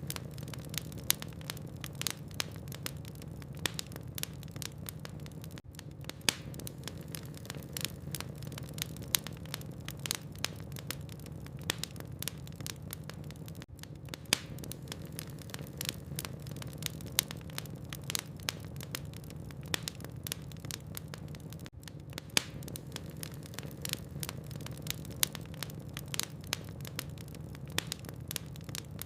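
Logs burning in a fireplace, crackling with a dense run of small sharp pops and snaps over a steady low hum.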